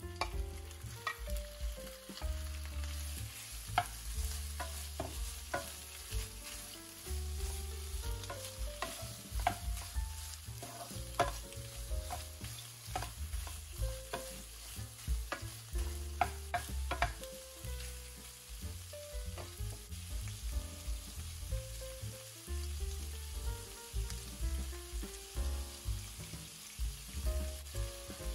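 Raw shrimp sizzling in a hot nonstick frying pan as a wooden spatula stirs them, with frequent sharp clicks and taps of spatula and shrimp against the pan over a steady sizzle.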